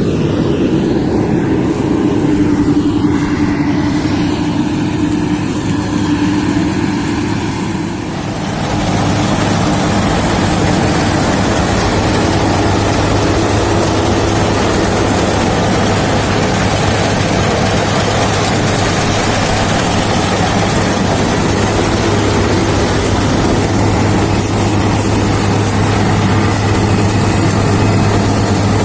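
Rice combine harvester's engine running steadily under load; about eight seconds in its sound grows fuller and noisier and then holds steady.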